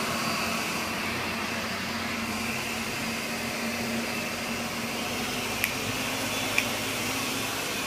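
Ninja blender running steadily at full speed, blending a fruit smoothie with almond milk, its motor whirring under a steady hum. Two short clicks about a second apart near the end.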